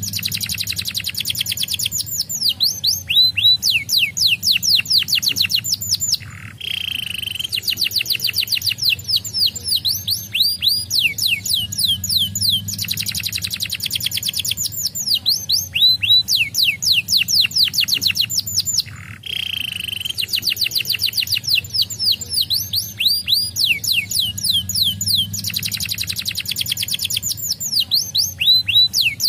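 Canary singing long, fast trills of falling whistled notes, phrase after phrase. Twice the trills break for a single held note.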